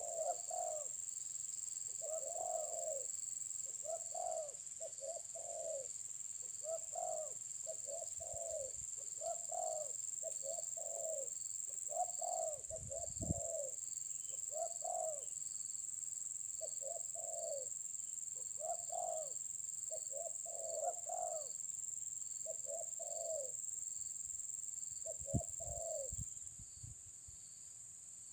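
Spotted dove (terkukur) cooing over and over in short phrases of two or three notes, a phrase every second or two. A steady high-pitched drone carries on underneath and drops away near the end.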